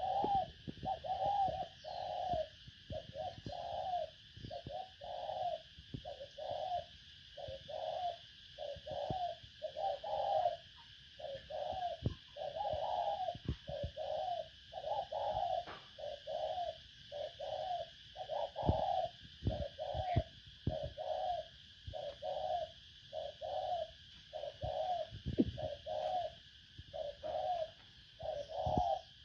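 Spotted dove cooing steadily, an unbroken run of short low coos at about one and a half a second, over a faint steady hiss. It is a decoy call used to lure wild doves.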